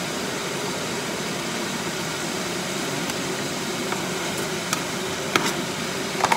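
Steady fan-like rushing noise, with a few light clicks and knocks in the last two seconds.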